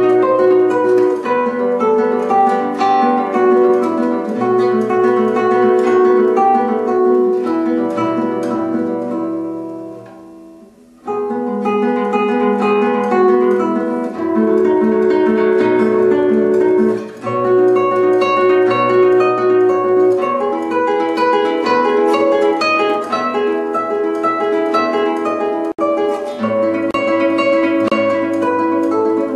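Background music: an instrumental of plucked guitar notes and chords. It fades out about ten seconds in, and after a short lull a new passage starts abruptly.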